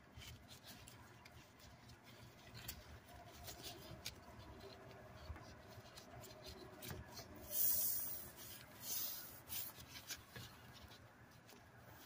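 Gloved hands rubbing and handling a plastic toy bison figure as it is turned over, with faint scattered clicks. Two louder rustles come about two-thirds of the way in.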